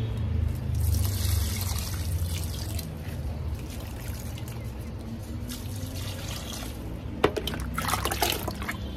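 Water poured from a mug onto potted plants, splashing and trickling into the soil, with a sharp knock about seven seconds in and a steady low rumble underneath.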